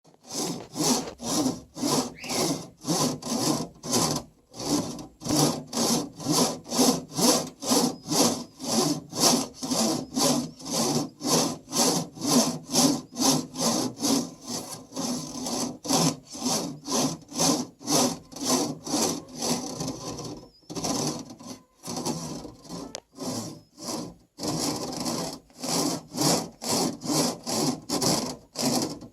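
A cockatoo rasping her beak back and forth across a grate, a rhythmic sawing scrape at about two strokes a second with a few short pauses. The owner takes it for the bird sharpening her beak.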